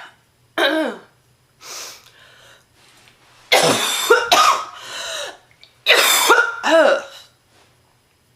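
A woman's deep, chesty smoker's cough from a heavy smoker who is ill: one cough, a breath in, then two loud fits of several harsh coughs in quick succession, each falling in pitch.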